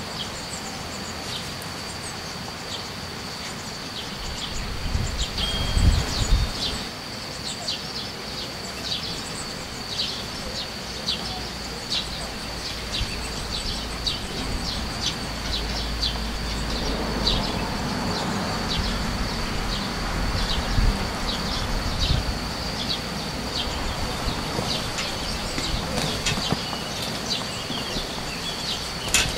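Blue tit chicks cheeping: many short, high-pitched calls, irregular but frequent, over a steady high tone. Low rumbles come and go, loudest about five seconds in.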